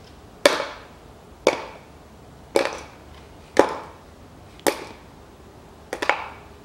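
Small bolts, just unscrewed from the oil pickup and the plate under the crankshaft of a Toyota 3S-FE engine, dropped one at a time into a plastic container: six sharp clinks about a second apart, the last one a double clink.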